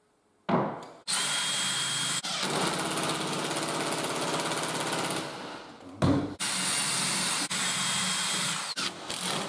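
A knock, then a cordless drill running steadily for about four seconds as it bores pilot holes through a clamped wooden carrier strip. After a short pause and another knock, the drill runs again for a couple of seconds.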